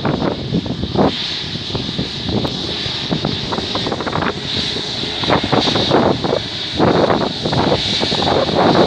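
Airbus A320neo jet engines whining steadily as the airliner taxis past, with gusts of wind buffeting the microphone.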